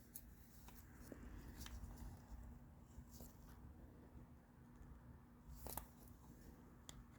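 Near silence with a faint steady hum and scattered faint clicks of a ribbon-cable connector and cable being handled, the loudest click a little before six seconds in.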